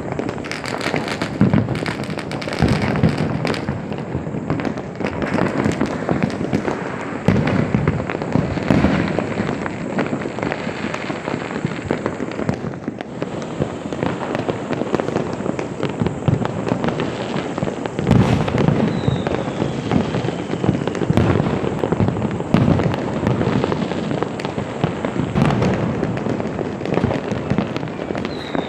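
Many firecrackers and fireworks bursting without a break: dense crackling with frequent louder bangs. A short falling whistle cuts through twice, about two-thirds of the way in and at the very end.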